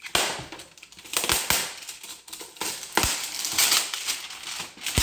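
Cardboard box and plastic packaging being handled: rustling and crinkling, with several sharp knocks and clicks.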